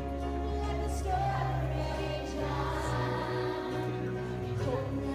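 Music: a sung ballad over a sustained accompaniment, with a group of young children singing along.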